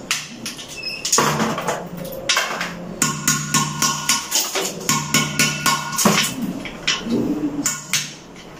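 Background music with a beat, over short sharp taps of hand tools chipping old cement off a ceramic toilet bowl.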